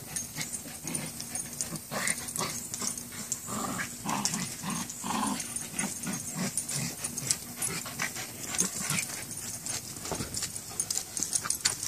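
Two small dogs play-fighting and tugging at a stuffed toy hung from a rope, with scuffling, short clicks and rustles, and low growls now and then.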